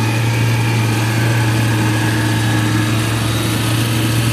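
Kubota DC105X rice combine harvester's diesel engine running with a steady, unchanging drone as the tracked machine drives and turns.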